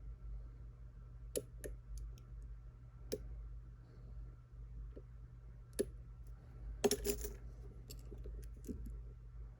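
Lock pick and tension wrench clicking against the pins of a pin tumbler challenge lock as it is single-pin picked. The clicks are short and come at irregular intervals, with a quick cluster of several about seven seconds in, over a steady low hum.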